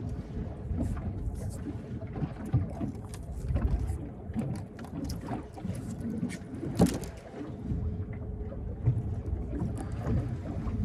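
Irregular knocks and clicks of handling on a small boat over a low, uneven rumble, with one sharp knock about seven seconds in.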